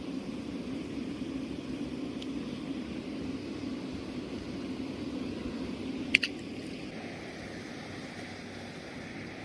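Steady rushing water noise that turns to a brighter hiss after about seven seconds, with one sharp click about six seconds in.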